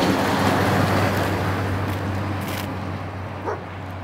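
Steady rushing noise over a low steady hum, slowly fading out.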